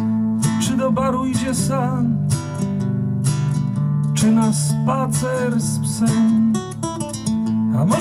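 Nylon-string acoustic guitar playing an instrumental passage: sustained strummed chords low down, with a higher melody line that wavers in pitch above them.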